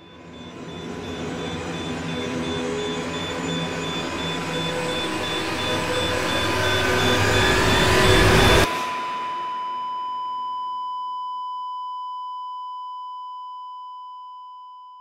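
Synthesized intro sting: a dense electronic swell grows louder and cuts off abruptly about eight and a half seconds in. It leaves a steady high electronic beep tone that slowly fades away.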